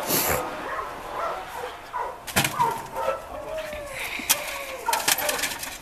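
A dog giving repeated short, excited yips and whines, with a few sharp clicks about two and a half, four and five seconds in.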